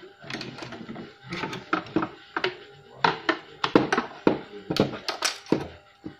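Background music with a run of sharp percussive hits, heard in a small room.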